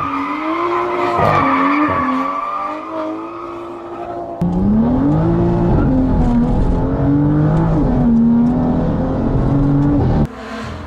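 BMW M2 engine and exhaust revving, the pitch repeatedly rising and falling as it accelerates and shifts. About four seconds in the sound cuts abruptly to a louder, deeper clip of the same kind of revving.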